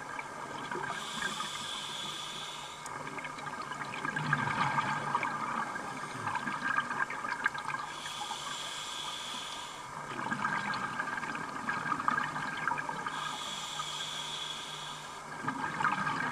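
A scuba diver's regulator breathing underwater: three hissing inhalations of about two seconds each, each followed by a louder gush of crackling exhaled bubbles.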